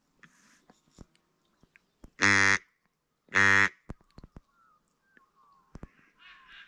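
Two loud, drawn-out duck quacks, each about half a second long and a second apart, with faint small bird chirps and clicks around them.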